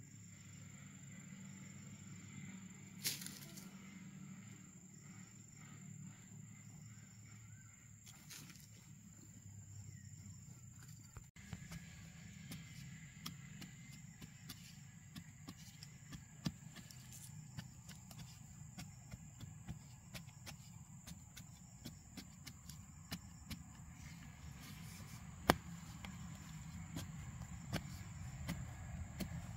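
Soft scraping and tapping of dry soil being dug out of a small hole, first scooped by hand, then loosened with a bamboo stick jabbed into the earth. Many small clicks, coming more often in the second half, with a couple of sharper taps. A steady high tone runs underneath.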